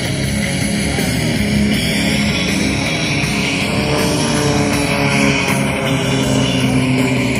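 Rock music with guitar, playing loud and steady.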